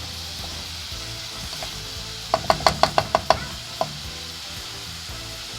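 Beef, tomato and seasonings sizzling in a soup pot as they are stirred, with a quick run of about eight metallic clinks of the spoon against the pot a little over two seconds in, and one more shortly after.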